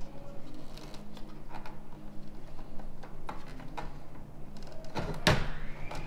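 Small plastic clicks and knocks from a Toyota Tacoma tail light housing being handled while a tight bulb socket is worked loose, with one louder knock about five seconds in. A low steady hum runs underneath.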